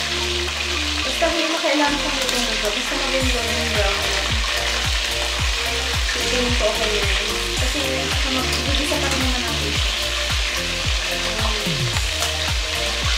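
Chicken pieces pan-frying in hot oil, browning in a steady sizzle, while metal tongs turn the pieces.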